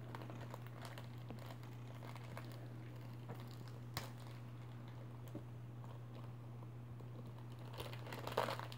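Faint crinkling of a plastic-foil Thomas & Friends Minis blind bag being handled and torn open, with a few soft clicks and the crinkling picking up near the end, over a steady low hum.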